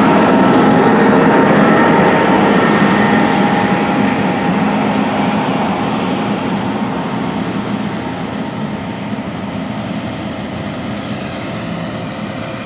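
Heavy John Deere farm machine running steadily with a diesel engine, its sound fading gradually from about three seconds in as it moves away.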